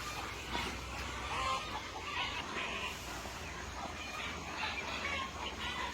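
Chickens clucking, with short calls coming every second or so.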